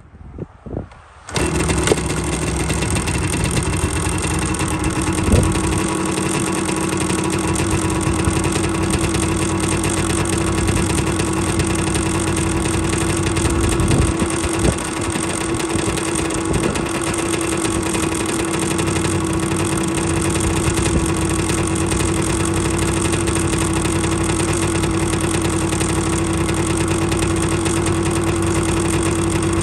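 A 1986 Yamaha Tri-Z's two-stroke single-cylinder engine is kick-started. It catches after a couple of kicks about a second in, then idles steadily with a few short blips of the throttle.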